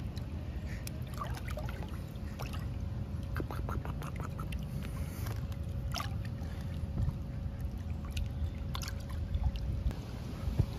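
Pool water lapping and splashing lightly around a baby's inflatable float, with scattered small splashes over a steady low rumble.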